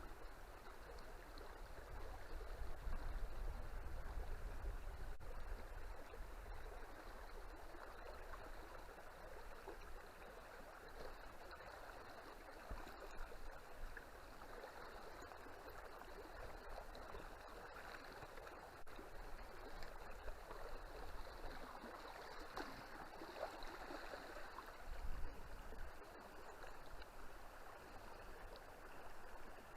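River water flowing steadily, a continuous rushing and rippling with a low rumble underneath.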